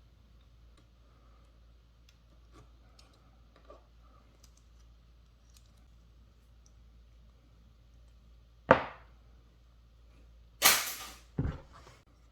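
A few faint ticks, then three sharp knocks of hard parts being handled: a single knock, a short scraping clatter, and another knock near the end.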